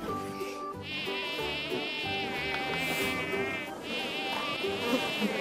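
Insect buzzing as a sound effect, its pitch wavering. It starts about a second in, breaks off briefly just before four seconds and starts again, over soft background music.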